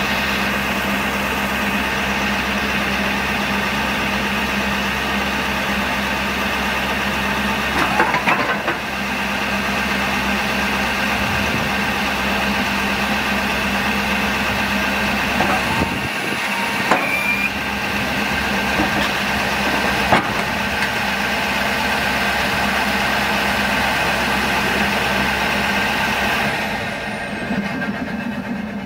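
A Fisher XLS snowplow's electric-hydraulic pump runs with a steady whine as the blade is angled and its wings are moved, over the truck's engine idling. The sound shifts briefly a few times as the blade moves. Near the end the pump stops and the engine idle goes on.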